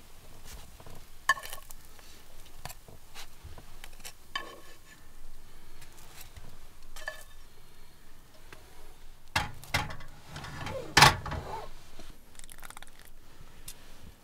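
Scattered knocks and light metallic clinks of cooking utensils against a frying pan and a wooden serving board as food is moved. A denser, louder clatter comes about ten seconds in.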